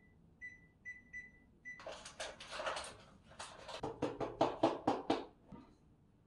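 Five short electronic beeps at one pitch from an appliance keypad being pressed, over the first two seconds. Then about three seconds of rustling, crinkling and light knocking as packaging and kitchen items are handled.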